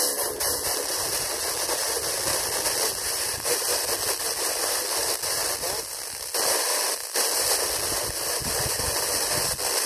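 FM radio receiver giving out loud static hiss on a weak or empty frequency, with no programme audible. The noise changes abruptly about six seconds in and again about a second later, as the tuning moves.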